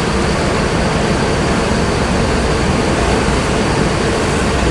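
Bus engine running close by: a steady low rumble that grows heavier in the bass about three seconds in.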